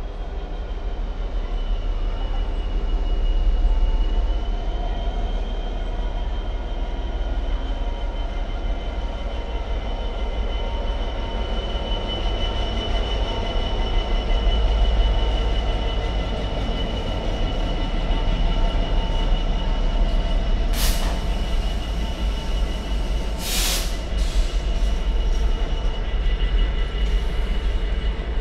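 Class 66 diesel locomotive's two-stroke EMD engine running as it hauls a container freight train slowly past, over a continuous low rumble of rolling wheels and a steady high squeal from the wheels on the rails. Two sharp knocks come about three-quarters of the way through.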